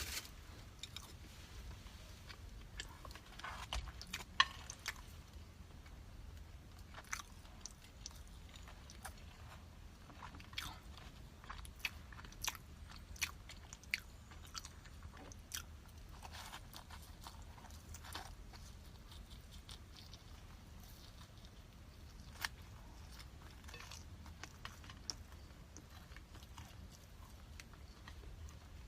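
A person chewing and biting food close to the microphone, with many small crunches and wet mouth clicks at irregular intervals.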